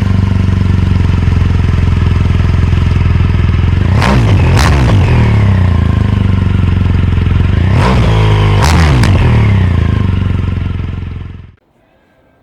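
1986 BMW K100RS motorcycle's inline-four engine running under way, with wind noise. It changes gear twice, about four seconds and eight seconds in, the pitch dropping at each shift. The sound cuts off sharply near the end.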